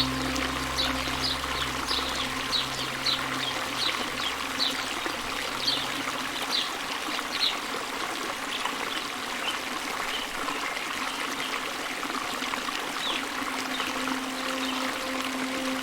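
A stream trickling and flowing steadily, with a bird giving short high falling chirps about twice a second that become sparser past the middle. Low sustained music tones underneath stop about halfway through.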